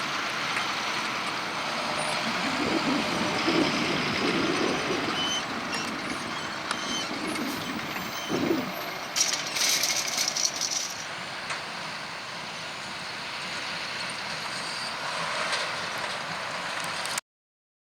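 Fendt 720 Vario tractor and small square baler with a Bale Baron bale bundler working: steady machinery noise, with a burst of clattering rattles about nine seconds in. The sound cuts off shortly before the end.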